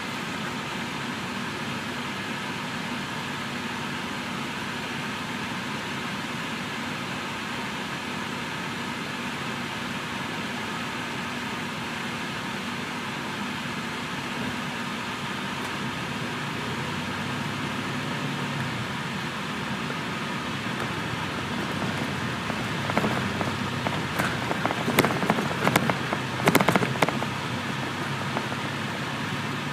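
Inside the cabin of a 2005 MCI D4500CL coach bus, its diesel engine idles with a steady hum, then the engine note shifts as the bus pulls away. A run of sharp clattering knocks and rattles comes near the end.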